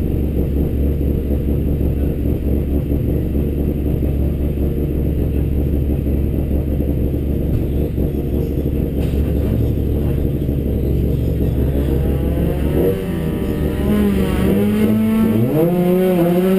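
Honda Civic Type R EP3's 2.0-litre four-cylinder engine idling steadily, heard from inside the race car's cabin. About three-quarters of the way through, tones that slide up and down in pitch come in over it.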